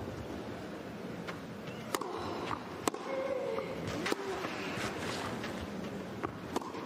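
Tennis ball struck by rackets during a rally: a few sharp pops a second or more apart, the loudest about three seconds in, over the low hum of a hushed arena crowd.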